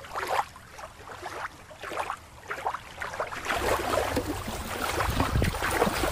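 Water lapping and splashing in the shallows, with a steady low rumble joining about halfway through and a hand splashing in the water near the end.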